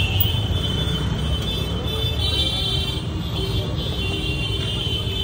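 Busy street traffic: a steady low rumble of passing vehicles with high horn toots coming and going.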